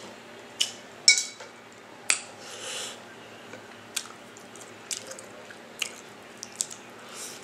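Close-up eating of a seafood boil: wet squishes, biting and chewing, with scattered sharp clicks. The loudest click comes about a second in, and a longer crackling rustle follows about two seconds in.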